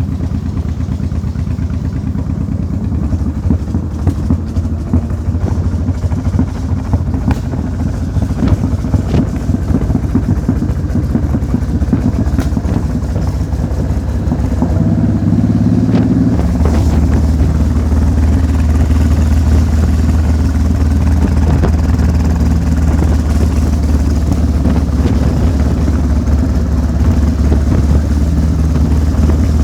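An engine running steadily, louder from about halfway through.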